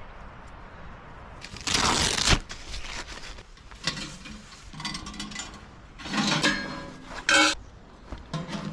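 A burst of scraping and rustling about two seconds in, then a series of metallic clinks and rattles with a ringing edge as a stainless steel tent stove and its flue pipe sections are handled and set in place, the loudest a short clank near the end.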